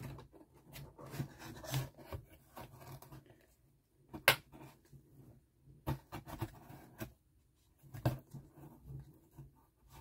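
Plastic toy parts and their packaging being handled: faint rustling with scattered sharp clicks and knocks, the loudest a little under halfway through.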